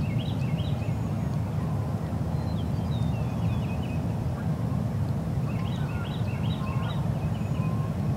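Steady low outdoor rumble, with a small bird's quick series of high chirps twice, about a second each: once at the start and again about six seconds in.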